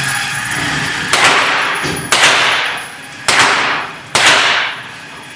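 Four single gunshots from a semi-automatic rifle, about a second apart, each followed by a fading echo.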